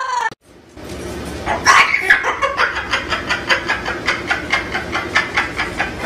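A brief amazon parrot call right at the start, then a white cockatoo laughing like a person: a long run of quick 'ha' notes, about three a second, over a low hum.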